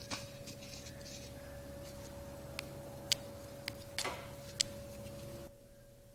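A few light clicks and taps from the small chain sprocket and its locking device being handled while they are oiled, over a steady low hum that cuts off near the end.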